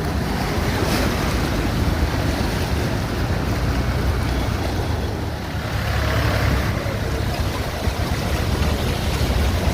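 Vehicles driving through floodwater on a waterlogged road: engine noise and rushing, splashing water, with wind buffeting the microphone.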